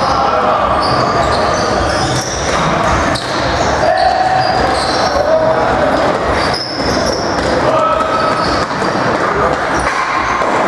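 Box lacrosse play in an arena: knocks of the ball and sticks, short sneaker squeaks on the floor and players' shouts, echoing in the large rink.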